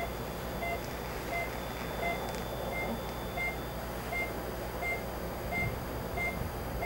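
A patient monitor gives a short, same-pitched beep about every 0.7 seconds, the pulse tone following the heartbeat at roughly 85 beats a minute. A steady low equipment hum runs underneath.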